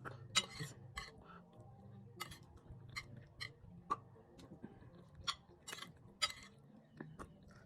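Eating sounds: a run of irregular, sharp clicks and smacks from someone eating a meal.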